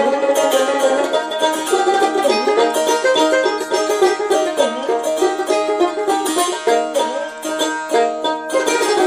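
Instrumental music: a plucked string instrument plays a quick melody with sliding notes over steady held drone tones.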